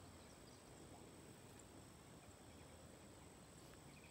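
Near silence: faint outdoor background with a thin steady high-pitched tone.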